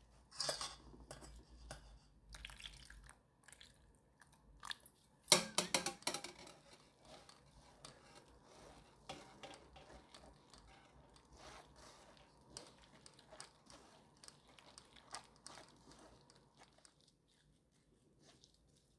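Wet squishing and rubbing of blended pear, onion and radish pulp being pressed through a fine metal mesh strainer by a gloved hand to squeeze out the juice. Water is poured in from a metal cup, with a louder burst of splashing and clatter about five seconds in; the rubbing grows fainter near the end.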